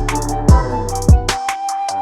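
Background music with an electronic beat: deep kick drums that drop in pitch, about one every 0.6 seconds, with crisp hi-hat ticks and a melody over them. The bass and kick drop out for a moment near the end, then come back.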